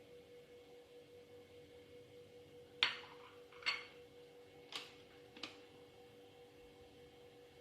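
Four light, sharp clicks or knocks, roughly a second apart in the middle of the stretch, over a faint steady hum.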